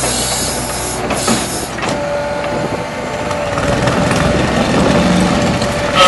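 Excavator with an Xcentric Ripper XR40 hydraulic ripper attachment running on a demolition site: a steady heavy machine noise, a few knocks about a second in, and a steady hydraulic whine that sets in about two seconds in.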